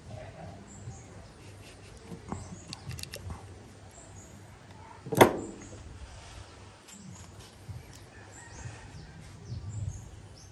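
Paint spray gun and its parts being handled and wiped with a cloth: soft rubbing and small clicks, with one sharp knock about five seconds in. Faint bird chirps come and go in the background.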